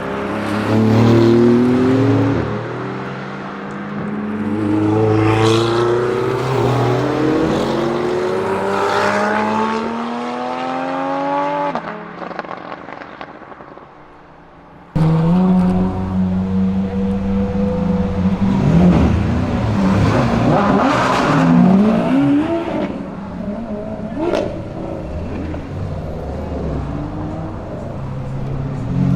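Tuned Audi RS7 Sportback C8's twin-turbo V8, breathing through catless downpipes, accelerating hard through several gears. Its pitch climbs and drops back at each upshift, and it fades away into the distance. After a cut, the engine is heard running close by and being revved up and down.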